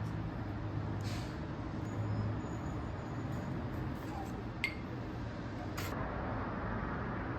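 A steady low mechanical hum with a noise hiss, with a light click about two-thirds of the way in and another a second later.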